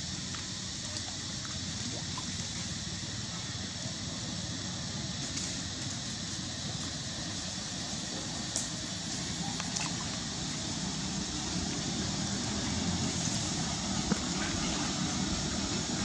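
Steady, even rushing outdoor background noise with a few faint ticks near the middle and toward the end.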